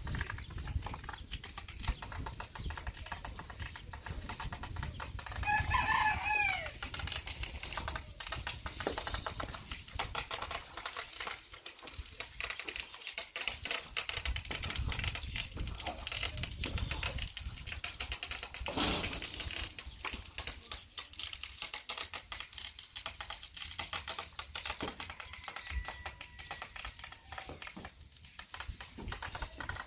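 Long-handled brooms scraping and scratching across a stone floor in a steady run of dry ticks. A chicken calls once about six seconds in, and a single sharp knock comes a little past the middle.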